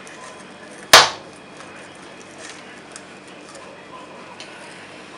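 A pizza-cutter wheel slicing through a baked pizza on a wooden board, with one loud, sharp crack about a second in and a few faint ticks otherwise.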